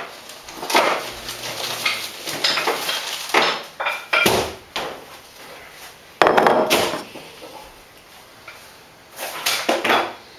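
Irregular clattering, knocking and scraping of containers and shelves being handled as a fridge is emptied, with louder knocks about four and six seconds in.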